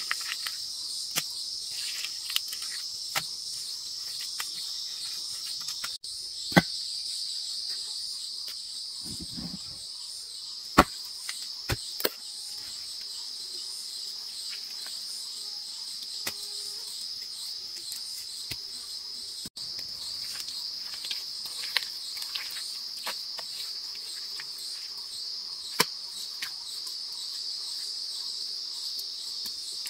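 A steady, high insect chorus, such as crickets, shrilling continuously. Scattered sharp taps and knocks come through it now and then.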